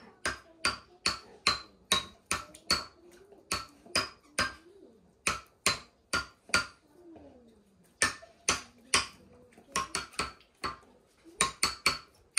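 Child's wooden-bar toy xylophone struck with a mallet, one note at a time, playing a simple tune at about two notes a second, each note ringing briefly. The notes pause for about a second around seven seconds in, then carry on.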